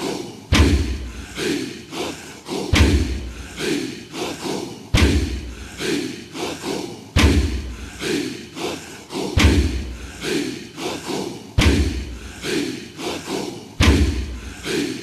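Drums beating in a steady repeating rhythm: a deep, heavy hit about every two seconds with several lighter drum strokes between.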